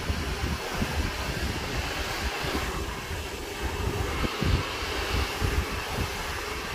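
Hair dryer blowing steadily during a blow-dry, with an uneven low rumble underneath.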